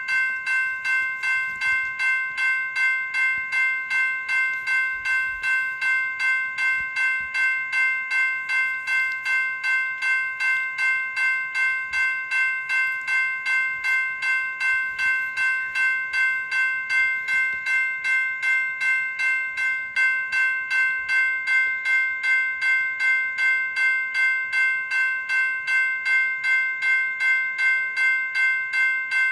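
General Signals Type 2 E-Bell, an electronic railroad-crossing bell, ringing continuously: a fast, even train of identical electronic bell strikes with a bright, multi-tone ring.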